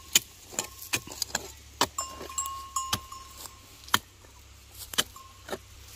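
A series of sharp, irregular knocks and clinks, about two or three a second, with a thin steady squeal held for about a second and a half in the middle.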